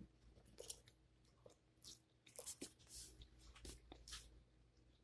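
Faint chewing of a mouthful of pizza: scattered, irregular soft crunches and mouth clicks.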